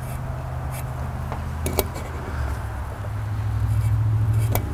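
Steady low machine drone of a running motor, with a few light clicks of a metal caliper being handled against an aluminium carburetor hat.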